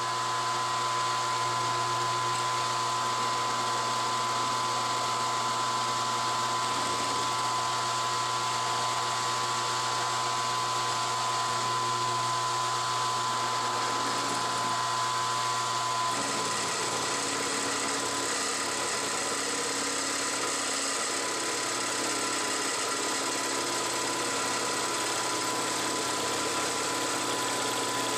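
Milling machine spindle running steadily with a two-bit cutter head cutting an arc into a metal plate, a steady whine over a hiss. The tone shifts slightly about halfway through.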